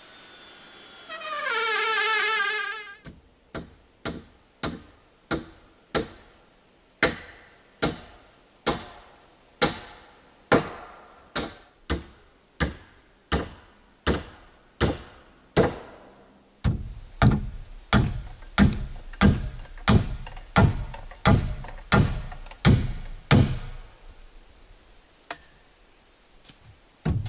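Hammer driving nails into the wooden rafters of a cabin roof frame: a long series of steady blows, about one and a half a second, light taps at first, then heavier blows from about halfway. A brief wavering, wailing tone is heard just before the hammering starts.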